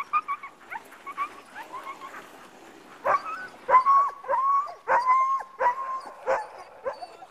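Sled dogs yipping and barking, several at once. From about three seconds in the barks grow louder, mixed with long drawn-out whines.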